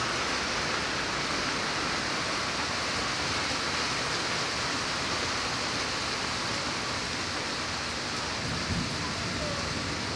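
Heavy rain coming down steadily, a dense, even hiss.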